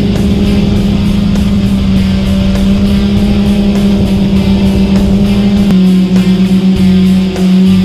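Rock music soundtrack with a distorted electric guitar holding one low, droning note that turns choppy near the end.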